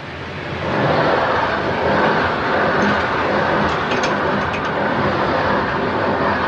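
A passenger train passing at speed, heard from inside a level-crossing keeper's cabin. The rushing rumble swells over the first second, then holds steady and loud, with a few sharp clicks about four seconds in.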